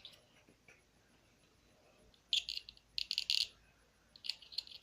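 Rustling and clicking from things being handled on a table: two short rustles a little past the middle, then a few light clicks near the end.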